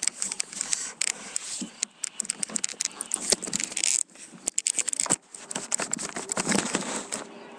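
Rapid, irregular clattering and rattling of things being shaken, from what the person calls an earthquake. It stops abruptly about seven seconds in.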